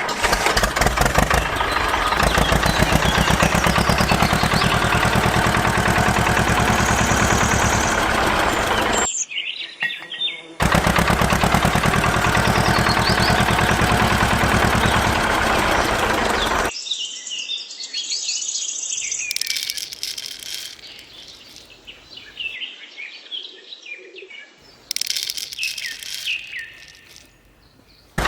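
A small engine running with a fast, even chugging in two long stretches, cut off abruptly each time. After that, birds chirp on their own.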